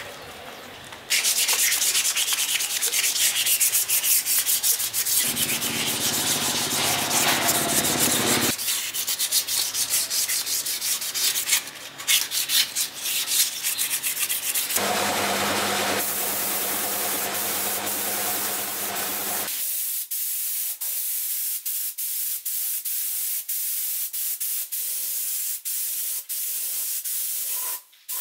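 Sandpaper rubbing back and forth over a motorcycle frame, wet-sanding the old paint off the tubes in a run of short edited stretches. In the last third it changes to the steady hiss of a gravity-feed spray gun.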